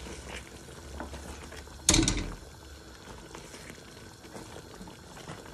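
Chicken curry in milk bubbling in a pan as it is simmered down to a thick consistency, with a single loud knock about two seconds in and a few faint clicks.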